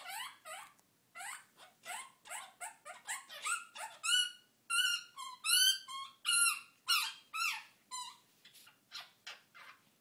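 Quaker parrot (monk parakeet) calling: a rapid string of short, sharply rising squawks, about two or three a second, growing louder and more tuneful in the middle and thinning out near the end.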